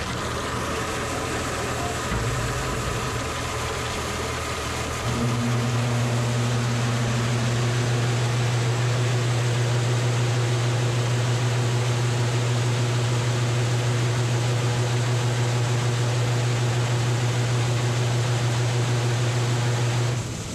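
Grain auger motor running, joined about five seconds in by the seed cleaner's electric motor and screen deck, which start with a strong steady hum. The cleaner cuts off abruptly near the end: its motor is wired for the wrong voltage and keeps shutting off after a few seconds.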